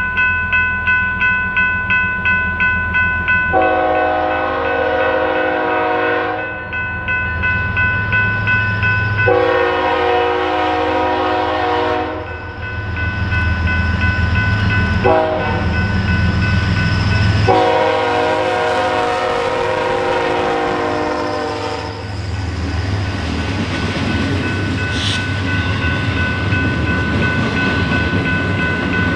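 A BNSF freight train's diesel locomotive blows its air horn in the grade-crossing pattern: long, long, short, long. Under the horn a bell rings about twice a second and the engine rumbles. After the last long blast, about 22 seconds in, the horn and bell stop and the train's cars roll past.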